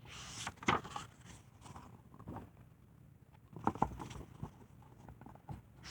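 Paper rustling and soft knocks of a picture book being handled, once at the start and again a little before four seconds in.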